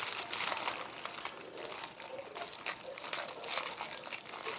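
Plastic roasting sleeve crinkling as its open end is gathered and twisted shut by hand, a run of irregular rustles and crackles.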